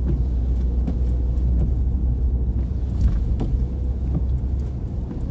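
Steady low rumble of a car driving, heard from inside the cabin: engine and tyre noise, with a few faint knocks.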